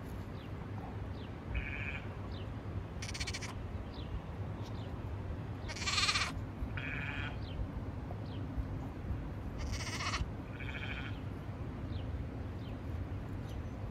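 Sheep bleating: about six calls in three pairs spread a few seconds apart, over a low steady hum.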